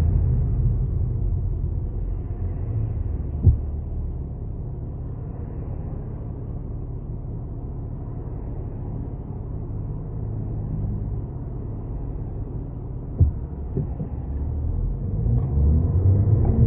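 Low rumbling drone from the defective wheel bearing of an Audi A6 4G TDI quattro while driving, dropping in level over the first few seconds and building again near the end. Two short knocks, about ten seconds apart.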